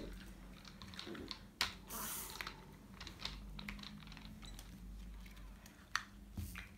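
Faint, scattered clicks and clatter of plastic toy building blocks being handled and pressed together, with a brief rustle about two seconds in.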